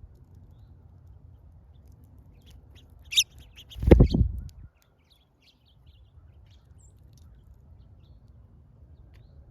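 Small birds at a feeder chirping in short scattered calls, with one louder chirp about three seconds in. Right after it comes a loud, low thud lasting under a second, the loudest sound here.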